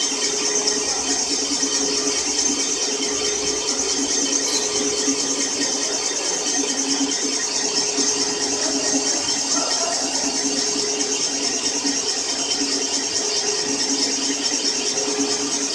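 Cylinder boring machine running steadily as its boring bar bores one cylinder of an engine block: an even mechanical gear-and-motor drone with a steady high hiss.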